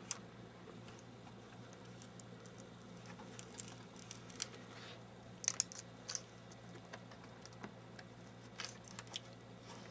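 Adhesive tape being handled and pressed back around the edge of a plastic monitor housing: scattered light crackles and clicks in a few short clusters. A faint steady hum lies underneath.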